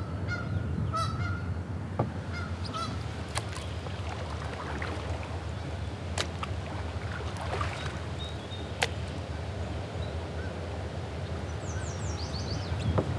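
Geese honking, about four calls in the first two seconds. Then a few sharp knocks and some brief high chirps near the end, over a steady low rumble of moving water and wind.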